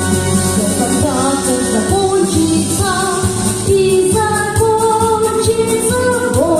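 A song performed live: a voice sings a gliding melody, coming in about a second in, over instrumental backing with a regular beat.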